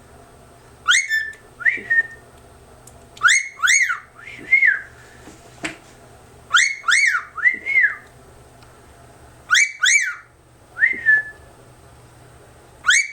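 Cockatiel calling: loud whistled chirps that rise and fall in pitch, in groups of two or three repeated about every three seconds.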